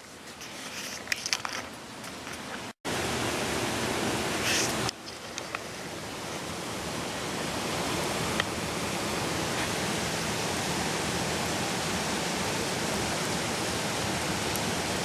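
Steady rushing of a gorge stream. There are a few sharp clicks in the first two seconds, and the sound breaks off for an instant just before three seconds in.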